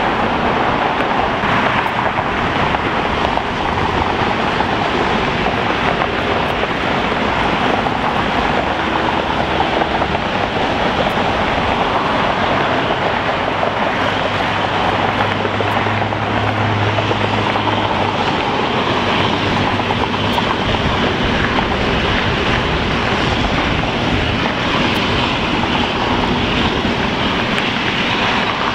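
Airbus A380's jet engines running at taxi power: a steady, even rush of jet noise. A faint low hum joins about halfway through and fades a few seconds later.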